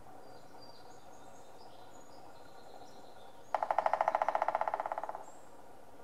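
Pileated woodpecker drumming on a dead tree: a fast, even roll of knocks starting past halfway, about a second and a half long, fading toward the end.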